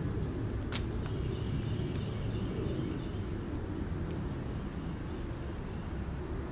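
Wind buffeting the microphone in a woodland: a steady, uneven low rumble, with one sharp click about a second in.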